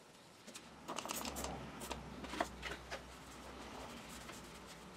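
Cloth rag wiping and rubbing across a pane of glass in a wooden door frame: a run of quick scratchy strokes from about one to three seconds in, then quieter wiping.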